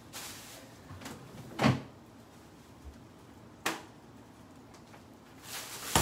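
Kitchen door sounds off to one side: a loud thud about a second and a half in and a sharp click a couple of seconds later. Near the end a plastic bag of kale rustles as it is carried in, ending in a sharp crackle.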